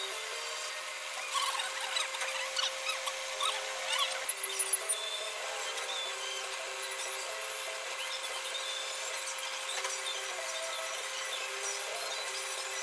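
Rotating grinding wheel machining the deck of an aluminium motorcycle cylinder casting: a continuous scraping, squealing grind with a steady tone under it, louder and scratchier for the first few seconds.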